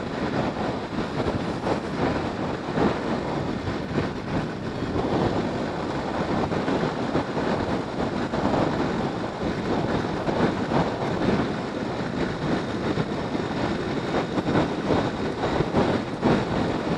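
Motorcycle riding at speed on a highway: a steady rush of wind and road noise on the action camera's microphone, rising and falling as the wind buffets it.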